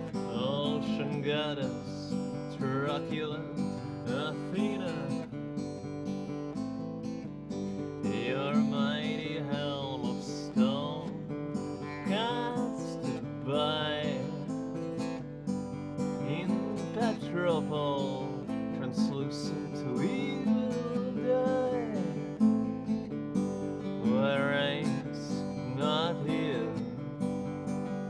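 Strummed acoustic guitar with a man singing over it, his voice rising and falling in long wavering phrases.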